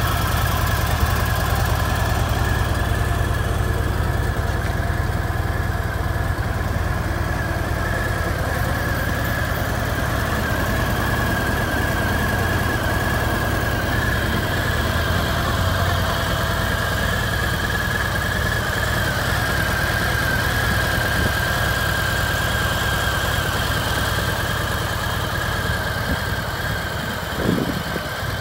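A Harley-Davidson Sport Glide's 1745cc Milwaukee-Eight V-twin idling steadily, with a steady high tone above the engine note. There is a brief bump about a second before the end.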